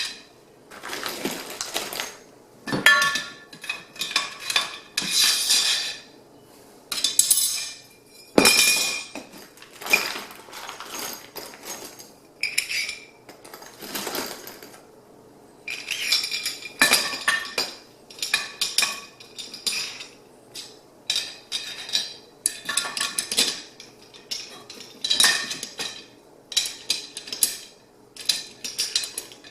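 Metal hardware and parts of a Granberg Alaskan MKIII chainsaw mill clinking and rattling as they are handled and fitted during assembly: carriage bolts, nuts and brackets going onto the rails. The sound comes in irregular bursts with short pauses.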